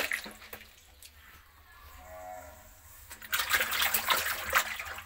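Water splashing and sloshing as a mass of large frogs clamber over one another in a shallow tub. A single short, low, moo-like croak comes about two seconds in, and a louder bout of splashing follows from about three seconds until near the end.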